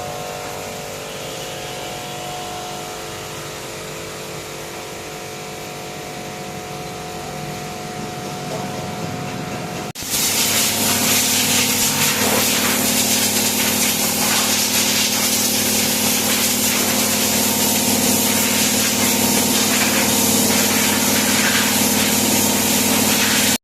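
A motorcycle engine running steadily; about ten seconds in it cuts abruptly to a louder, steady machine hum with a strong hiss, like a pressure washer spraying.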